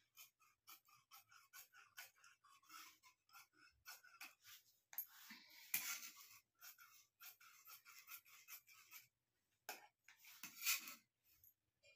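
Faint snipping of scissors cutting through blouse fabric: a quick run of small clicks, a few a second. There are louder rustles of cloth being handled about halfway through and again near the end.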